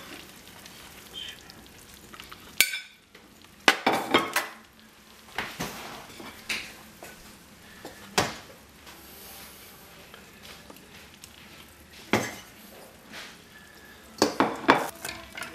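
Metal tongs working baked chicken leg quarters off a foil-lined baking tray onto a ceramic plate: scattered sharp clinks, knocks and scrapes over a faint hiss. The clinks bunch together about four seconds in and again near the end.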